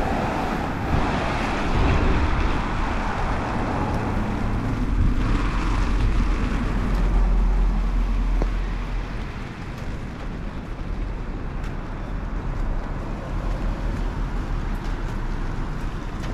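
Street traffic on a wet road in the rain: a vehicle passes with a low rumble and tyre hiss, loudest around the middle, then fades to a quieter, steady hiss.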